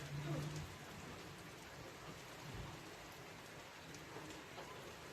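Steady rain falling, an even hiss with faint scattered drips.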